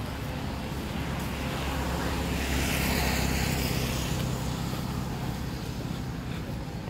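A motor vehicle passing on the road alongside: its engine and tyre noise grow louder, peak about three seconds in, then fade away, over a steady low traffic rumble.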